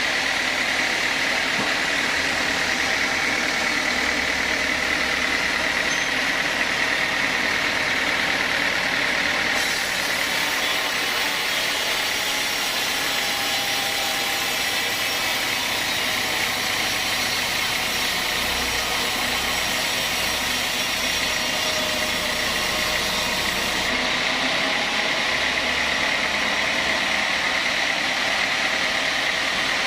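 Sawmill saw and its engine running steadily, with a brighter hiss added from about a third of the way in until near the end.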